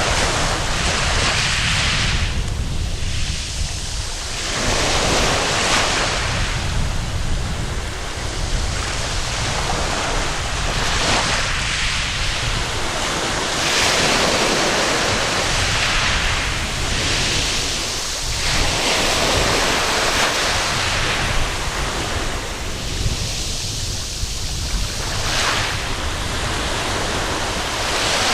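Waves breaking and washing up a sandy beach one after another, the surf swelling and ebbing every few seconds, with wind buffeting the microphone as a steady low rumble.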